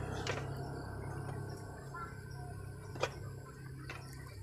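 Toyota Corona's carburetted engine idling steadily with a low, even hum and two short clicks, one near the start and one about three seconds in. It is running with its misfire and shaking largely gone after the spark-plug fix.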